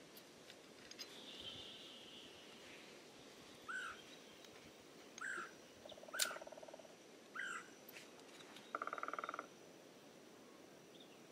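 A flint struck once against a fire steel, a single sharp click about six seconds in. Behind it are short repeated bird chirps every second or two and a few buzzy trills.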